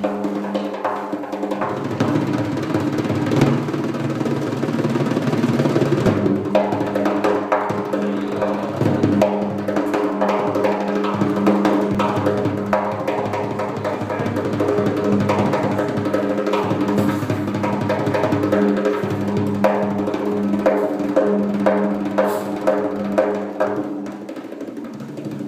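Large hide-headed frame drum played with bare hands in fast, dense strokes and rolls, with a sustained low ring under the strokes.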